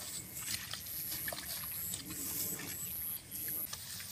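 Rustling and footsteps through tall grass and splashing in a shallow muddy puddle, with a high-pitched chirp repeating about every half second.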